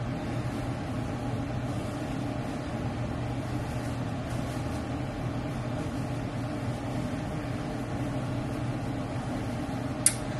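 A steady low machine hum, with a single sharp click near the end.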